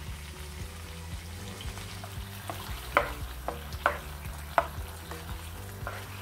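Chicken pieces and freshly added tomato purée sizzling in a non-stick wok while a spatula stirs them, with about six sharp clacks of the spatula against the pan from about halfway through, over a steady low hum.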